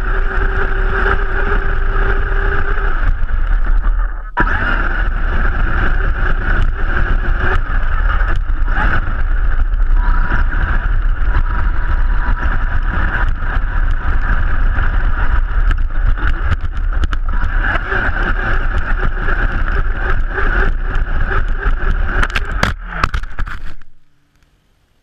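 Vaterra Twin Hammers RC rock racer driving over rough dirt, heard from a camera mounted on the truck: a steady electric motor and drivetrain whine with tyre and jostling noise, briefly cut off about four seconds in. Near the end come a few sharp knocks as the truck crashes and flips, and then the motor stops.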